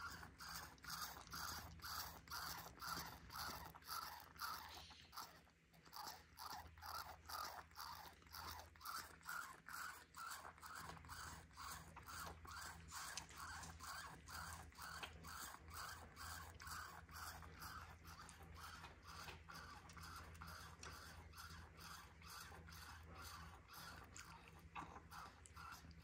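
A capuchin monkey sucking milk from a baby bottle's nipple: soft, rhythmic sucking, about two to three pulls a second, with a brief pause about five seconds in.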